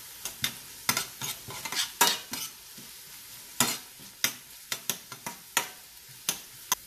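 Chopped shallots and curry leaves frying in hot coconut oil, sizzling steadily, while they are stirred and scraped around the pan in a quick, irregular run of strokes.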